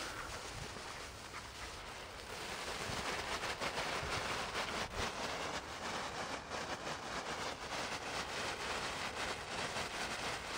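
Small ground firework (a Keller 'Leuchttaler') burning on asphalt with a steady hiss full of fine crackles as it sprays sparks and glows.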